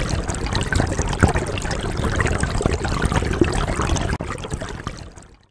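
Water trickling and splashing, a steady run of small splashes and drips that fades out near the end.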